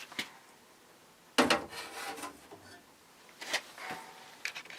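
Handling noises from fan parts being moved about: a few short knocks and rubbing scrapes, the loudest scrape about a second and a half in.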